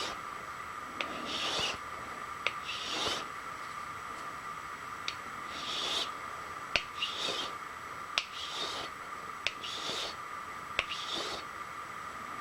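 A hand file working a metal hinge segment: short rasping strokes, about one every second or so, with a few light clicks between them. A steady high hum runs underneath.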